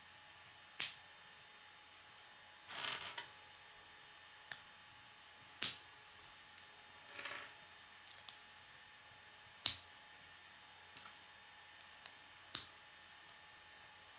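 K'nex plastic rods snapping into connector pieces: four sharp snaps a few seconds apart, with smaller clicks and two brief rattles of plastic parts in between.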